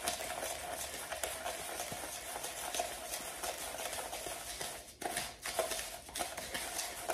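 Spoon stirring a dry salt-and-sugar cure mix in a small plastic container, the coarse salt grains scraping against the plastic in a continuous gritty rasp. It pauses briefly about five seconds in, then resumes as a few shorter strokes.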